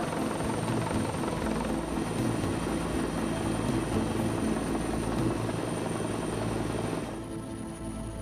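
Helicopter lifting off and climbing away overhead, a steady loud rotor and engine sound. It drops noticeably in level about seven seconds in.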